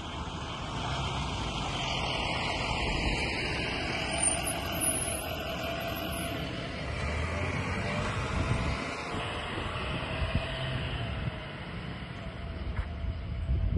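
Motor vehicle passing close by on the road: a low engine rumble with tyre and road noise.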